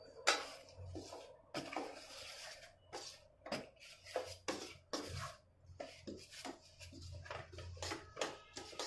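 Silicone spatula stirring ragi flour into hot water in a stainless-steel bowl: irregular soft scrapes and knocks against the bowl, about one or two a second, over a faint low hum.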